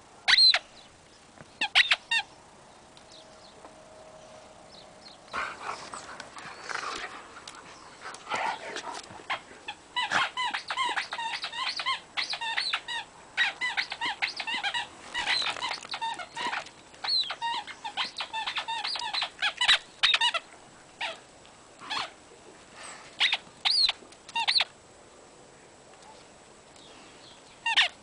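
A homemade sausage-shaped squeaky toy sewn from fabric scraps squeaking over and over as two dogs tug and chew at it, in quick runs of squeaks through the middle stretch with single squeaks before and after.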